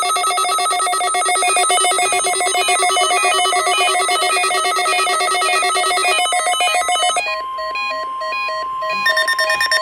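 Electronic ringing tones like a telephone ringtone: a fast-trilling pattern at several pitches that changes about six seconds in and again about a second later, when a steady single tone comes in and holds.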